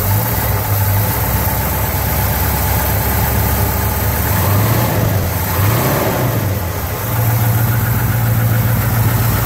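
A 1968 International Harvester 1100D's 345 cubic inch V8, still warming up after a cold start, running steadily. About halfway through it is briefly revved by hand at the carburetor linkage, then settles back into a steady run, a little louder. It is running smoothly, a real healthy motor by the owner's account.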